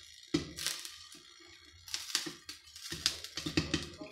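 Popcorn popping in an oiled kadhai under a glass lid: irregular sharp pops, several a second. The pan is already full of popped corn, so the batch is near its end.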